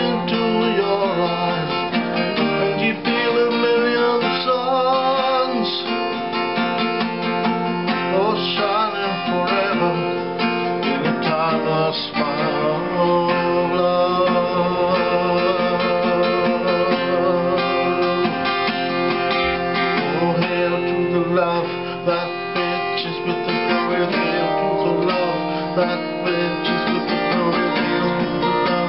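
Acoustic guitar strummed steadily while a man sings a love song to it.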